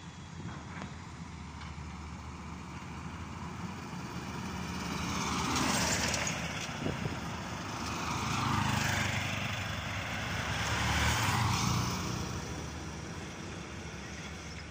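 Road vehicles passing close by: three swells of engine and tyre noise, each building and fading over a couple of seconds, about three seconds apart, over a steady low rumble.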